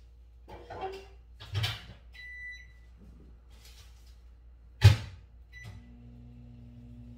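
Microwave oven being loaded and started: a knock as its door is handled, a long beep from the keypad, the door shut with a loud clunk, a short second beep, and then the oven running with a steady low hum near the end.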